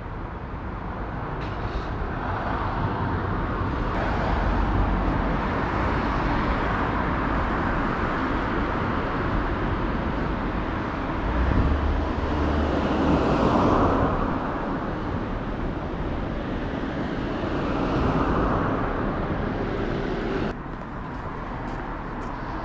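Road traffic: cars passing one after another along the street, the loudest pass about halfway through.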